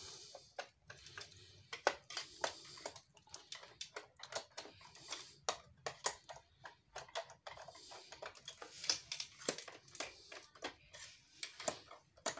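A screwdriver backing out the screws on the plastic back cover of a portable radio cassette recorder: irregular small clicks and scrapes as the tip works in the screw heads and knocks against the casing.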